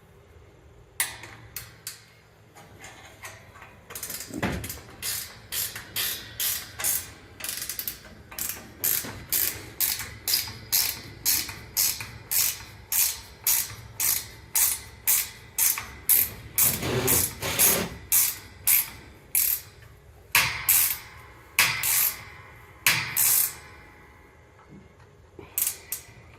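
Ratchet clicking in a long run of short, even strokes, about one and a half a second, while a fitting is worked during gate hanging.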